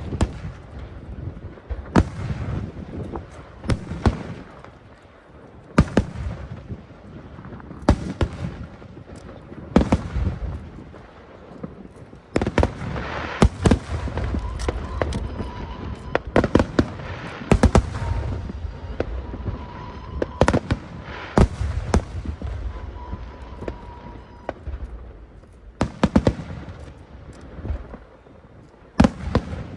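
Aerial fireworks shells bursting high overhead: a string of loud bangs every second or two with crackling between them, coming thickest in the middle stretch.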